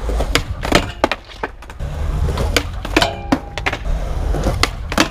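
Skateboard wheels rolling on concrete with a series of sharp wooden clacks and knocks from the board, several in quick succession, one with a short ringing tone just after the middle.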